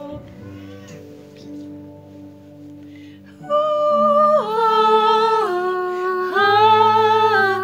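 Background music: soft sustained chords, joined about three and a half seconds in by a louder wordless hummed melody of long held notes that step down and back up.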